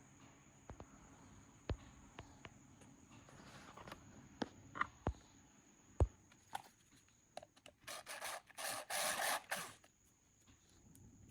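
Small hand work on a workbench: scattered light taps and clicks, then a rasping scrape lasting about two seconds near the end, with a faint steady high whine behind.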